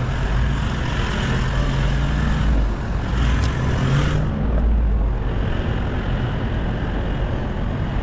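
Toyota 79 series Land Cruiser running on a 4x4 track: a steady engine rumble with tyre and body noise. The engine note rises a little about three seconds in, then eases off a second later.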